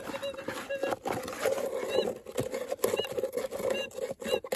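Minelab Gold Monster metal detector's audio in full manual mode: a steady threshold hum with uneven ground chatter in it as the small round coil is swept over the gravel, with scattered scrapes and clicks from the coil brushing the rocks.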